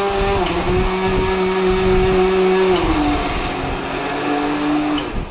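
Electric kitchen mixer grinder running with a steady motor whine. Its pitch drops slightly about a second in and lower again near three seconds, then it cuts off near the end.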